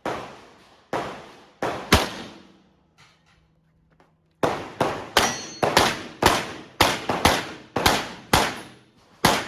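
Pistol shots fired in a practical shooting stage: four shots at an uneven pace, a pause of about two seconds, then a rapid string of about fourteen shots, two to three a second.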